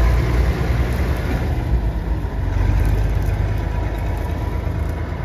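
Swaraj 855 tractor's three-cylinder diesel engine running close by: a loud, steady low rumble.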